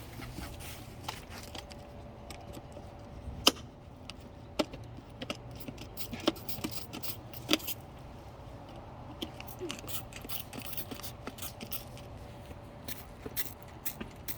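First drops of light rain tapping close to the microphone as scattered sharp clicks, sparse at first and more frequent in the second half.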